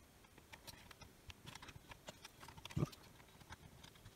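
Faint, scattered small clicks and taps of a soldering iron and fingers working on a speaker's wire terminals inside an opened plastic radio case, with one louder low knock about three seconds in.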